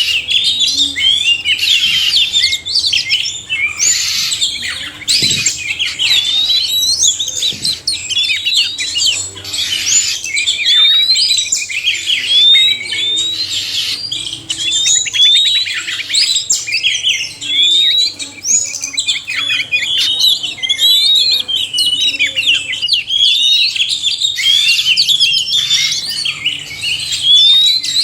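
Oriental magpie-robins, male and female, singing together: a dense, unbroken stream of overlapping whistles and chirps.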